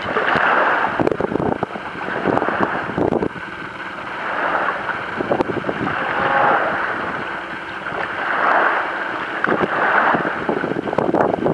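Small waves lapping and washing in the shallows, swelling and easing every second or two, with wind buffeting the microphone.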